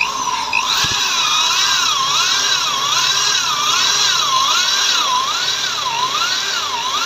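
Electric drill running under load, driving a self-drilling screw into metal. Its whine wavers up and down in pitch over and over, about once a second.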